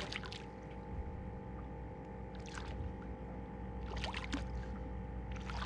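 A hooked striped bass splashing at the water's surface beside the boat as it is grabbed and landed: a few short splashes, about two and a half, four and five and a half seconds in, over a steady low hum.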